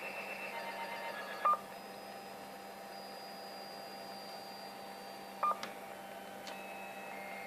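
A CB radio on the 11-metre band receiving a strange signal: several steady whistling tones that step between pitches, over a low hum, with two short loud beeps about four seconds apart.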